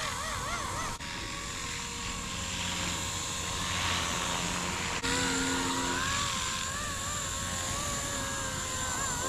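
Blade CP235 electric collective-pitch RC helicopter in flight. Its motor and rotor give a steady high whine, with tones that waver up and down in pitch as the rotor speed and load shift. The sound changes abruptly about a second and about five seconds in.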